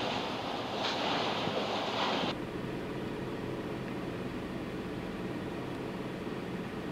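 Wind buffeting the microphone in gusts over background machinery noise, which breaks off abruptly about two seconds in. A steady low machinery hum with a faint drone follows.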